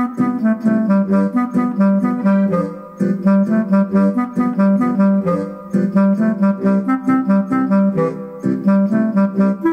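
Bavarian Ländler played on an accordion through a Limex MIDI system: the melody sounds as a deep clarinet, over helicon-style bass and guitar-like chords keeping an even beat.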